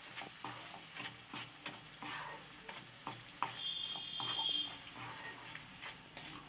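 Wooden spatula stirring and scraping grated ash gourd and sugar around a nonstick kadai in irregular strokes, the wet mixture bubbling on the heat as the sugar melts. A brief steady high tone sounds for about a second midway.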